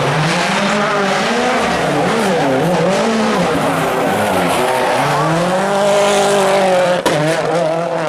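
Ford Fiesta rally car's turbocharged four-cylinder engine revving hard, its pitch rising and dropping again and again as it works through the gears round tight turns. A short click about seven seconds in, then another rally car's engine.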